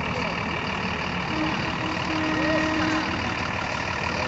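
School bus engine running at low speed as the bus rolls slowly past, a steady low rumble.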